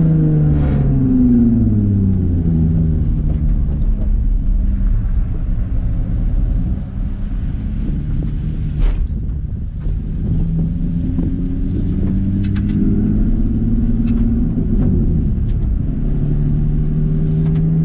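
Nissan 350Z (Z33) 3.5-litre VQ V6 engine heard from inside the cabin. The revs drop away at the start, then the car runs steadily at low revs with a gentle rise and fall in engine speed partway through, as it rolls slowly off the circuit.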